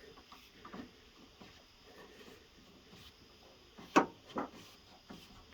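Faint handling noise from a rubber window gasket being worked into a truck door's channel with a screwdriver, with one sharp knock about four seconds in and a lighter one just after.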